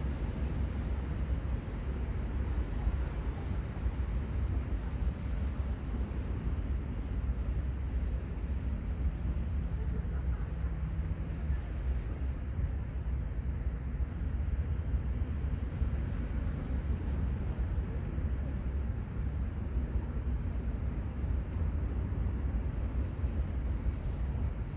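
Outdoor seaside ambience: a steady low rumble with no rise or fall, and a faint high chirp repeating about every second and a half.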